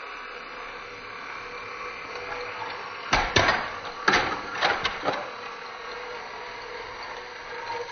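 Motorized toy train engines running along their track: a steady whir, with a cluster of sharp clicks and clatters about three to five seconds in.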